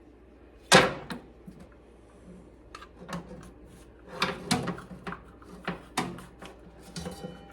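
Hands handling a bicycle chain cleaner tool and chain: one sharp knock about a second in, then scattered clicks and clatters of parts being fitted together.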